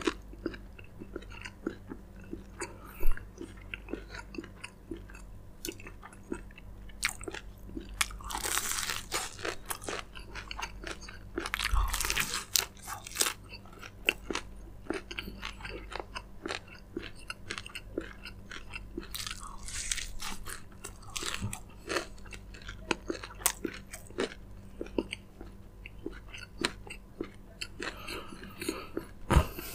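Close-miked eating of crispy fried chicken: steady chewing with dense crackly crunches of the fried coating, and several louder stretches of crunching as fresh bites are taken.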